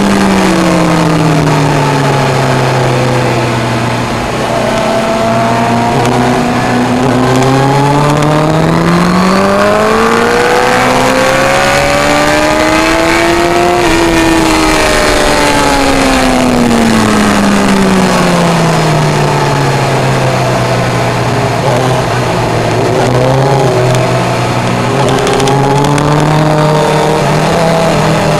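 Suzuki GSX-R1000 K1 inline-four engine heard onboard at track speed over a steady rush of wind. The engine note drops, climbs smoothly for several seconds to a peak about halfway through, falls away for several seconds, then rises again near the end.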